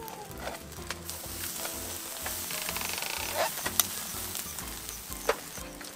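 Raw Angus beef steak sizzling as tongs lay it on the wire grill mesh over hot charcoal. The hiss builds about a second in, and a sharp click of the tongs against the mesh comes in the middle, over soft background music.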